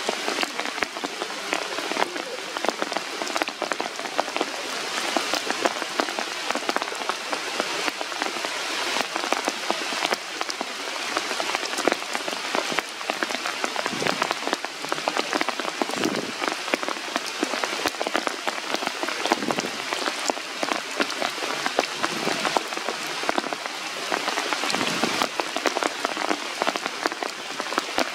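Steady rain falling on the leaves of a tree canopy: a continuous hiss with many separate drop hits throughout.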